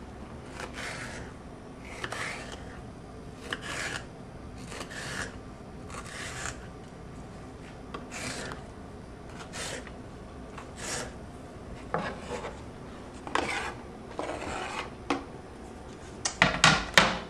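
Knife slicing an orange bell pepper on a cutting board: short cutting strokes about once a second, with a quick run of louder knocks near the end.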